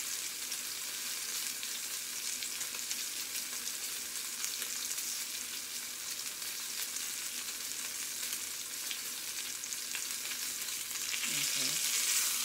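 Salmon fillet searing in a cast-iron skillet: a steady sizzle with fine crackling, growing a little louder near the end as the fish is turned.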